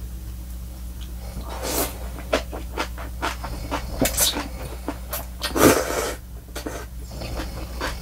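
Janchi guksu noodles being slurped up from the broth, with several wet slurps and lip smacks; the loudest, longest slurp comes about five and a half seconds in, with chewing clicks between.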